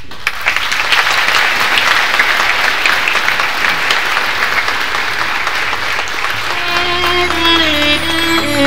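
Audience applauding, a dense, steady clatter of many hands. About six and a half seconds in, string music with a held low note comes in over the applause.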